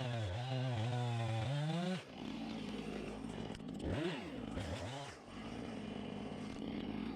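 Gasoline chainsaw running, its engine pitch wavering and rising about two seconds in. Its pitch then dips and recovers twice, around four and five seconds in.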